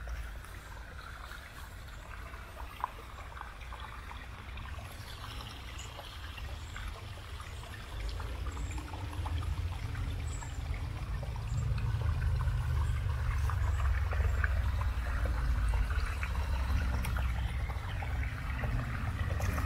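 Small stream trickling and splashing over rocks, a steady wash of water. A low rumble grows louder about halfway through.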